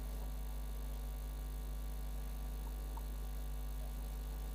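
Steady low electrical mains hum with a few overtones above it, unchanging throughout, with only faint brief sounds in the background.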